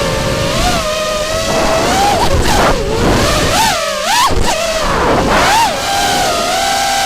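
Racing quadcopter's 2300 kV brushless motors and 5-inch three-blade props whining. The pitch swoops up and down every half second or so as the throttle is punched and cut, over a rush of air.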